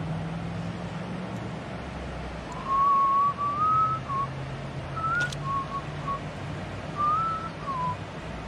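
A person whistling a short wandering tune, starting about two and a half seconds in, in several short phrases that rise and fall, over a steady low background rumble.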